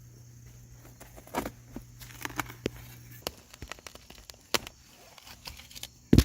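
A small shovel digging into soil around a dead bush's roots: irregular scrapes and crackling knocks, with the loudest knock near the end.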